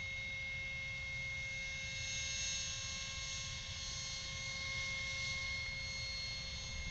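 A 100 mm electric ducted-fan RC jet in flight, its fan giving a steady high whine: several even tones over a hiss.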